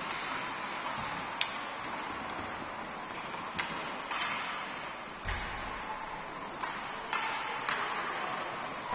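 Ice hockey rink during play: a steady hiss of skate blades on the ice, with several sharp clacks of hockey sticks and puck, one about five seconds in carrying a deeper thud.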